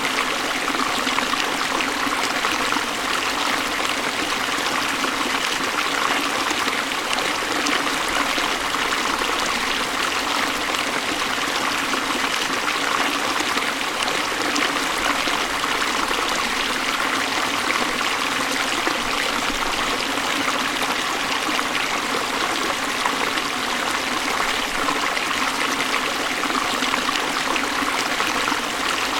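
Waterfall: water falling and splashing in a steady, even rush, with little deep rumble.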